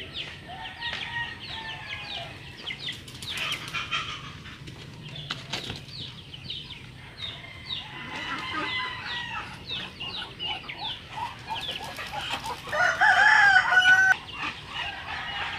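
Backyard poultry calling: a steady run of short, high chirps and clucks, with a loud, wavering rooster crow lasting just over a second near the end. There are brief flurries of wing flapping around three seconds in and again during the crow.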